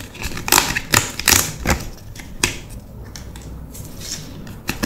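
Stiff card-stock sleeve of a Secret Lair pack being unfolded and handled. A quick run of sharp crackles and snaps in the first two and a half seconds is followed by quieter rustling, with one more crackle near the end.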